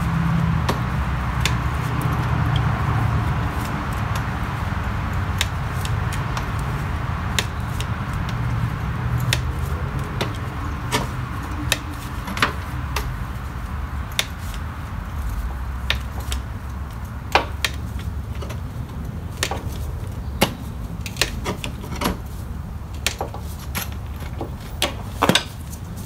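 Hand-lever grease gun pumping grease into the blade-spindle grease fitting of a Snapper Comet mower: a string of sharp metallic clicks from the gun's lever, coming more often in the second half, over a steady low rumble.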